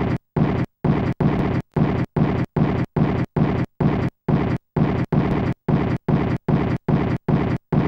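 Rhythmic pulses of rough, rumbling noise, about three a second, each cut off sharply into a short silence before the next.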